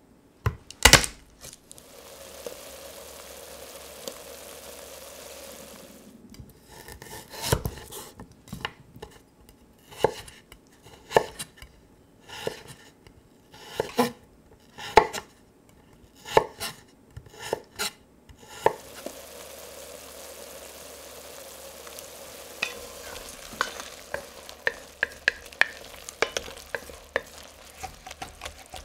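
A knife chopping ginger on a wooden cutting board in a run of sharp, irregular knocks, from about six seconds in until past the middle. Before and after the chopping there is a steady frying sizzle. Near the end, a wooden spoon stirring onions and mushrooms in an enamelled cast-iron pot adds quick scrapes and clicks over the sizzle.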